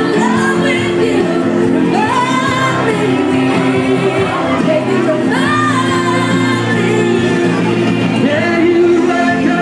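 Loud singing over backing music, a sung melody with held, gliding notes.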